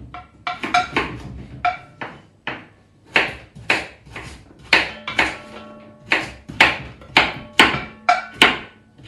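Kitchen knife chopping carrots on a wooden chopping board: a run of sharp knocks, about two to three a second.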